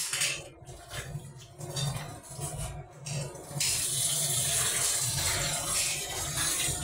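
Kitchen tap running into a metal cooking pot, a steady rush of water that starts about three and a half seconds in, as the pot is filled to wash the rice. Before it come a few light knocks as the pot is handled at the sink.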